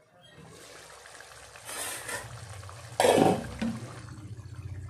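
Thick curry gravy bubbling as it simmers in a covered kadai. About three seconds in there is a loud knock as the condensation-covered lid is lifted off, and the gravy goes on bubbling uncovered.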